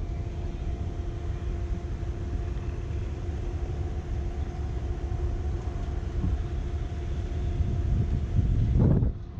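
Distant locomotive running with a steady hum over a low rumble; the hum cuts off abruptly about nine seconds in.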